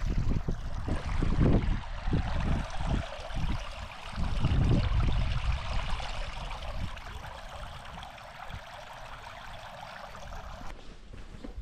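Spring water running in a stone-lined channel: a steady rushing hiss that stops abruptly near the end. Irregular low rumbling gusts through the first half are louder than the water.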